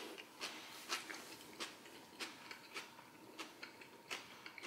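A person chewing a mouthful of creamy coleslaw with the mouth closed: faint, even, wet clicks a little under two a second.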